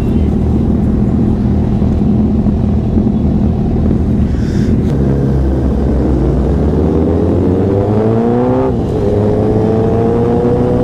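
Superbike engines idle together, then a Honda CBR1000RR's inline-four pulls away. Its pitch rises through first gear, drops at an upshift about nine seconds in, then climbs again in the next gear.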